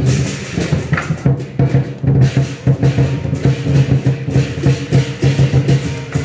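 Music with a steady beat over a sustained low note.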